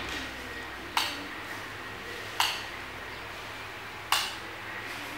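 Three sharp clanking knocks, about a second and a half apart, each dying away quickly, over a faint steady hum.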